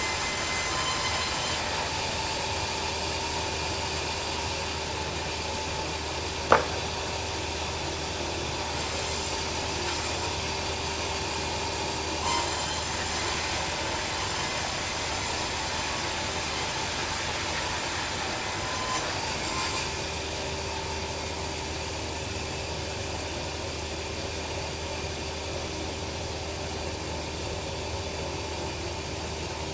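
Bandsaw sawmill running steadily as it cuts a log into boards: a continuous hum and hiss with steady tones, and one sharp knock about six seconds in.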